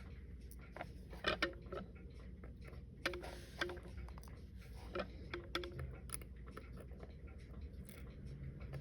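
Light clicks and taps of small metal watchmaker's tools on a Citizen Leopard Diver wristwatch as it is taken apart, with a few sharper taps a little after one second, around three seconds and around five seconds, over a faint low hum.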